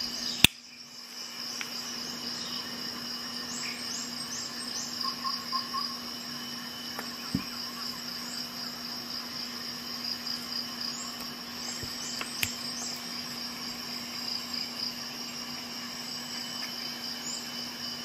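Swiss Army knife tools snapping shut with a sharp metal click about half a second in, and fainter clicks later. Under the clicks, a cricket trills steadily and a faint low hum runs.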